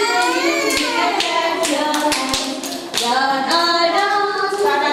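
Group of young children singing together, with scattered hand claps among them.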